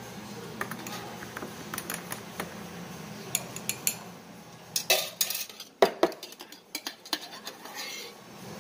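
Long metal spoon stirring in a ceramic mug, clinking against its sides in a run of sharp clinks that come thickest and loudest a little past the middle.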